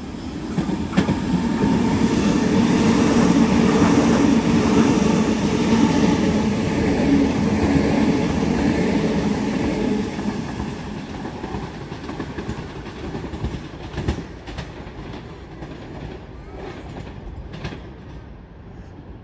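A Sydney Trains Waratah electric train running past the platform, its running noise building to a loud, steady rush and then fading after about ten seconds. A few sharp wheel clacks over the rail joints follow as the tail end moves away.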